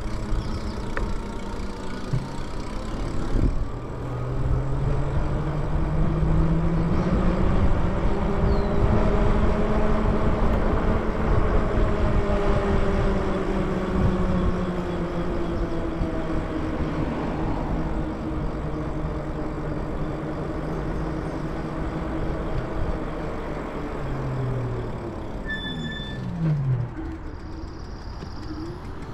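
Electric bike motor whining while riding: the whine climbs in pitch as the bike speeds up, holds, then slowly sinks, and drops quickly near the end as the bike slows. Wind rushes over the microphone throughout.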